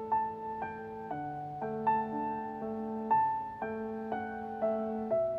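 Gentle background piano music: single notes and chords struck about twice a second, each ringing on.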